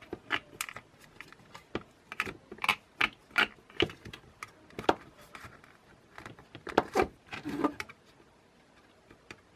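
Irregular sharp plastic clicks and taps as a plastic card is worked into the seam of a DJI Mavic Air's rear plastic cover to pry it off, quieter near the end.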